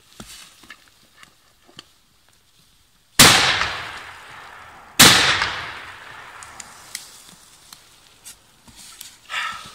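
Two shotgun shots about two seconds apart from a break-action shotgun, each a sharp blast that echoes away over a second or more.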